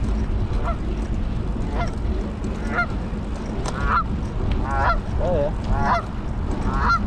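Geese honking, a series of short calls about once a second that grow louder toward the end, over a steady low rumble of wind and riding noise on the microphone.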